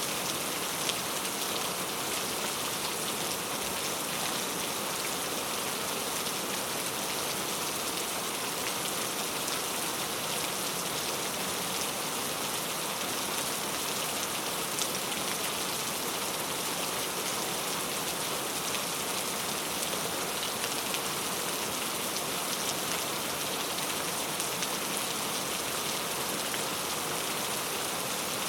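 Steady rain falling on a surface, an even hiss of many fine drops with no change in strength.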